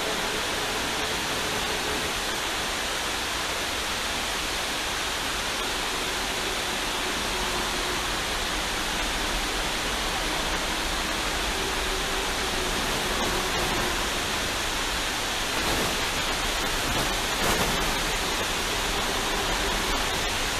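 Water pouring over a low dam spillway: a steady, unbroken rush of falling water.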